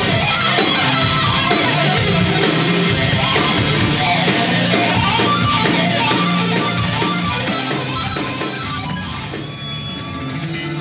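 Live hard rock band playing loud: distorted electric guitar over a steady electric bass line and drums with cymbals. The music drops in loudness for a moment near the end.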